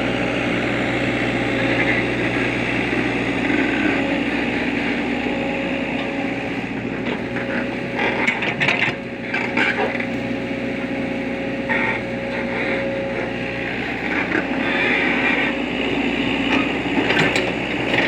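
Komatsu hydraulic excavator's diesel engine running steadily, with a cluster of sharp knocks and scrapes about eight to ten seconds in and again near the end.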